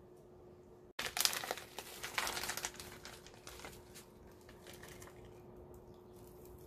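Plastic packet of shredded nori crinkling as it is handled and opened. It starts about a second in, is loudest for the next two seconds, then trails off into lighter rustles and ticks.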